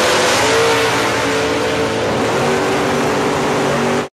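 Propane-fuelled 5.4-litre Ford V8 of a Mustang drag car at full throttle, accelerating hard down the strip: a loud, dense roar whose note steps down a little about halfway through. It cuts off suddenly at the very end.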